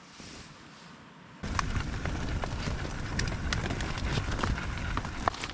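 Wind buffeting the microphone in a low rumble, with crackling rustle, perhaps from tent fabric, starting abruptly about a second and a half in after a faint hiss.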